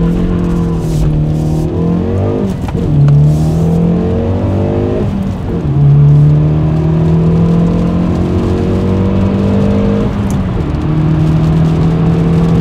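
Hyundai Veloster N's turbocharged 2.0-litre four-cylinder accelerating hard through the gears through an MBRP 3-inch cat-back exhaust, heard from inside the cabin with a smooth note. The engine note climbs, drops at an upshift about two and a half seconds in, climbs again and drops near five seconds. It then makes a long climb before a third upshift about ten seconds in, after which it holds steady.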